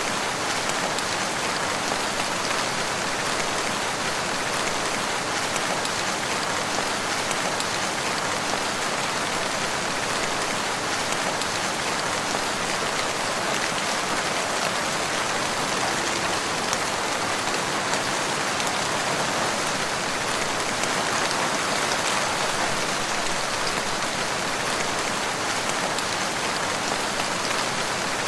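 Steady rain falling on a surface, a dense even patter.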